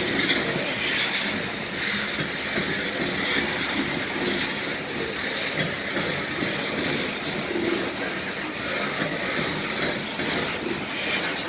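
Loaded coal hopper cars of a freight train rolling past on the rails: a steady noise of steel wheels on track with many irregular short clicks.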